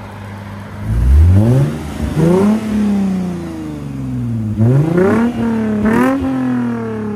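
A 2006 Lexus IS250's 2.5-litre V6 heard through a J2 Engineering cat-back exhaust from behind the car. It idles, is revved hard about a second in, and is blipped twice more near the end, the pitch falling back after each rev.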